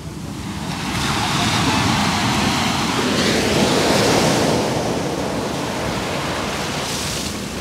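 Sea waves surging in, the wash building for about three seconds and then slowly fading, with wind buffeting the microphone.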